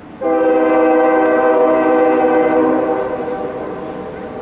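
Nathan K5HL five-chime locomotive air horn sounding one long blast: several notes together, starting abruptly, then weakening about three seconds in and trailing on more quietly.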